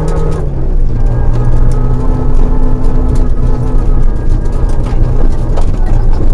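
Rally car engine running hard at high revs, heard from inside the cabin, its pitch dropping briefly about half a second in, then holding, with gravel clicking against the car's underside.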